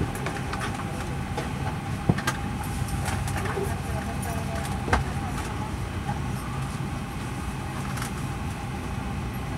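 Steady cabin rumble inside a Boeing 737-800 after landing, with a faint steady whine over it. Two sharp clicks stand out, about two seconds in and again about five seconds in.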